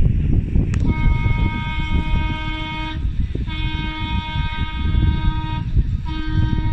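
A horn sounds three long steady blasts of about two seconds each, with short gaps between them, over a constant low rumble.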